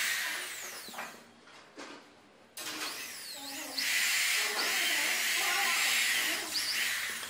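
Corded electric hand drill boring into a block of wood. It runs briefly at the start and dies away about a second in, then runs again from about two and a half seconds until near the end, its pitch rising and falling.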